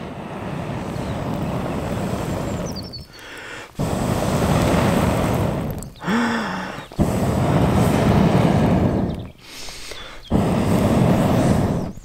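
Long, even breaths blown through a telescopic metal fire-blowing tube onto smouldering embers, four blows of two to three seconds each with short pauses for breath between; the air is rekindling the campfire into flame.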